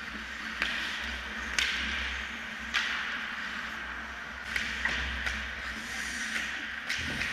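Ice hockey play on an indoor rink: a steady scraping hiss of skates on the ice, with about eight sharp clacks of sticks and puck spread through it.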